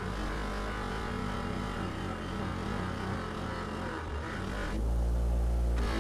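A HYET 6-inch half-horsepower bench grinder buffer running steadily while an old axe head is held against its black wheel to clean the rust off. Near the end it grows louder and deeper for about a second.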